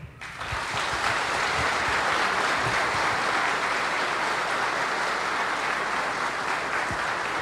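Audience applauding, building up within the first half second and then holding steady.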